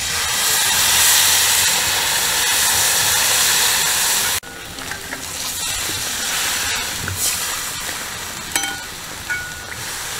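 Water poured into a pan of chilli masala fried in hot oil, hissing and sizzling loudly for about four seconds. It drops suddenly to a quieter steady sizzle, with two short clinks near the end.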